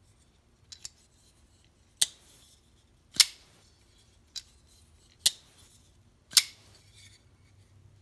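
Zero Tolerance 0470 flipper knife with a KVT ball-bearing pivot and titanium frame lock, its blade flicked open and closed over and over. Four sharp, loud metallic clicks come about a second apart, with a few quieter clicks between them.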